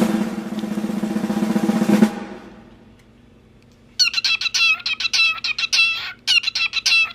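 A fast rattling roll with a steady low pitch for about two seconds, then fading. After a pause, a cockatiel gives short chirping calls in quick groups of several notes each.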